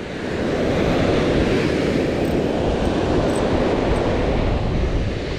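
Surf washing onto the beach, swelling over the first second and then holding steady, mixed with wind rumbling on the microphone.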